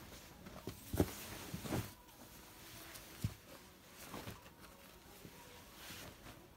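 Rustling of synthetic jackets and fleece tops as they are handled and turned over, with a few louder knocks and scuffs in the first half.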